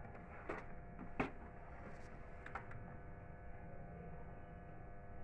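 A few short knocks and clicks from the plastic body of an Epson M2140 printer as it is turned around on a table, the loudest about a second in. A steady electrical hum runs underneath.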